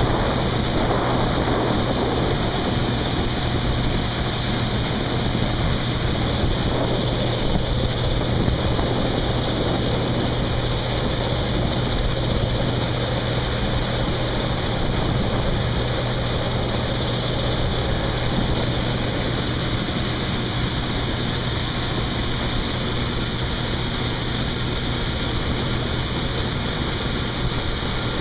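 Heavy diesel harvest machinery running steadily at working speed: a constant low engine hum under an even mechanical hiss.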